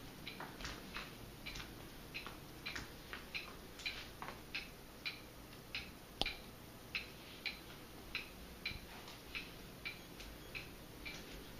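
Faint, regular ticking, about two short ticks a second, over quiet room tone.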